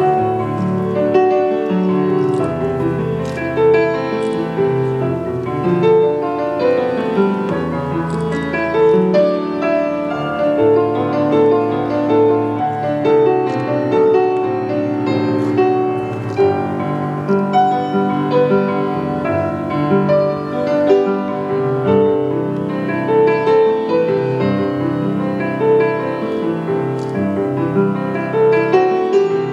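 Piano music with held chords over a bass line that changes every couple of seconds.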